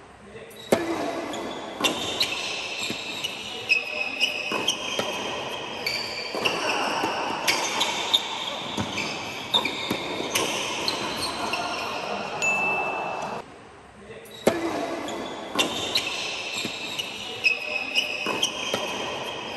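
Tennis balls struck hard by rackets in a doubles rally, each hit a sharp crack, among many high squeaks of tennis shoes on the hard court, echoing in a large indoor hall. The sound drops away briefly about two-thirds through, then the same hitting and squeaking starts again.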